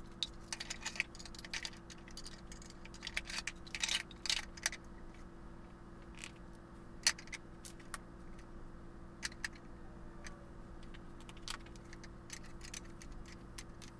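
Scattered, irregular light clicks and knocks of wooden drawer boxes and hand tools being handled and fitted against a cast iron frame on a workbench, over a steady low hum.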